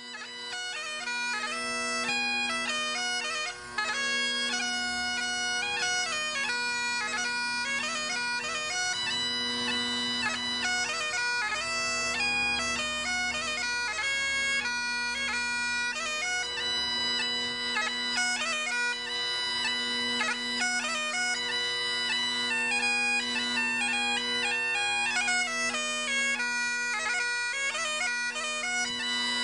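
Bagpipes playing a slow tune, the melody moving over steady unbroken drones.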